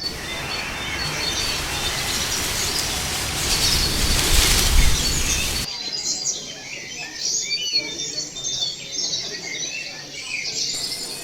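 A rushing noise swells over about five seconds and cuts off abruptly, and is followed by a bird ambience sound effect: many birds chirping.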